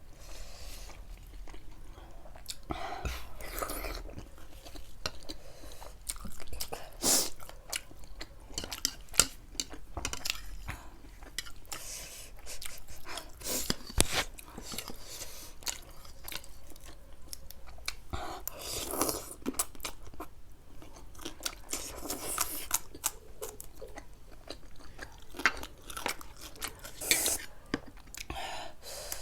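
A person eating close to the microphone: chewing and biting, with many short, sharp crunching clicks.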